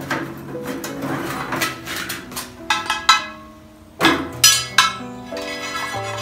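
Cast-iron Dutch oven lid knocking and scraping against a metal fire-pit bowl as spent charcoal is dumped off it, with a cluster of sharp metallic clanks in the second half. Background music plays underneath.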